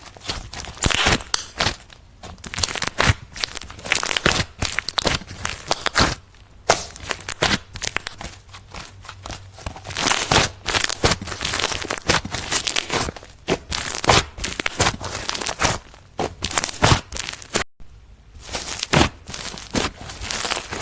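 Slime being squeezed, pressed and stretched by hand, giving dense irregular crackling, popping and crinkling in uneven bursts, with a brief break about three quarters of the way through.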